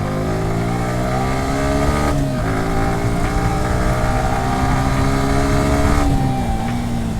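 Motorcycle engine accelerating under load, its pitch climbing steadily and dropping abruptly twice, about two seconds in and again about six seconds in, as it is shifted up through the gears.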